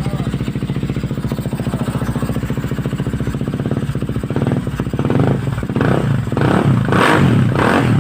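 450cc motorcycle engine idling with a fast steady beat, then revved in a series of throttle blips from about halfway through, each louder toward the end. It runs after a throttle sensor adjustment that cured its hard starting.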